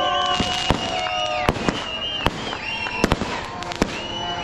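Aerial fireworks going off overhead: an irregular series of sharp bangs and crackles, with high whistling tones between them.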